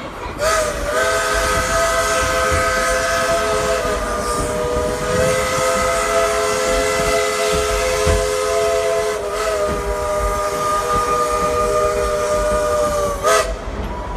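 Narrow-gauge steam locomotive's whistle blowing one long blast of about thirteen seconds, several tones sounding together as a chord, shifting slightly in pitch twice, heard from a passenger car of the train it is pulling.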